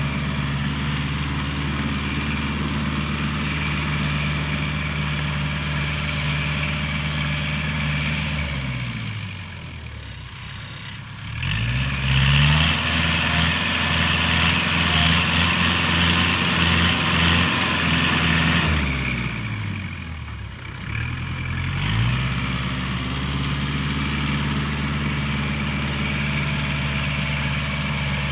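Kubota tractor's diesel engine running steadily while driving a rear rotary tiller through field stubble. The engine note falls away and rises back up twice, and a loud rushing hiss from the tiller and ground runs through the middle stretch.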